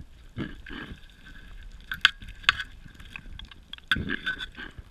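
Underwater handling noise from a speargun and a speared dentex struggling in the sand: muffled thuds near the start and again about four seconds in, with two sharp clicks around the middle.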